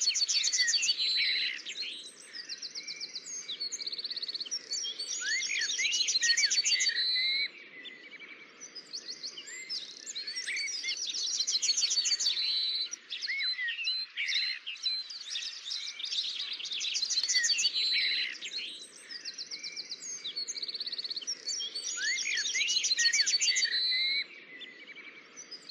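Birds singing: fast high trills and short gliding chirps over a faint steady hum. The same run of phrases repeats about every five to six seconds.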